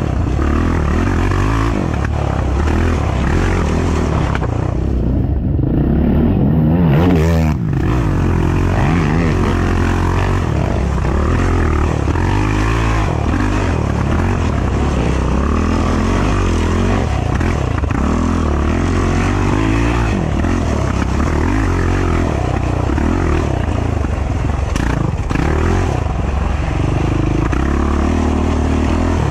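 Race ATV engine running as the quad is ridden along a rutted dirt trail, its pitch rising and falling with the throttle. It revs up and is briefly louder about seven seconds in.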